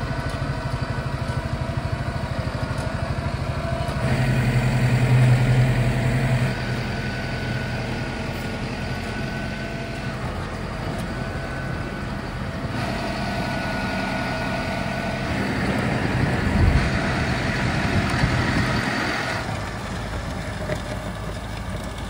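Massey Ferguson tractor's diesel engine running steadily under load while it pulls a rear grader blade along a gravel road. The engine sound swells louder twice, about four seconds in and again about sixteen seconds in.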